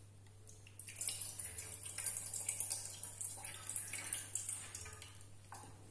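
Water trickling and dripping into a steel pot as it is drained off soaked sabudana (tapioca pearls) held back by hand. It starts about a second in and fades near the end.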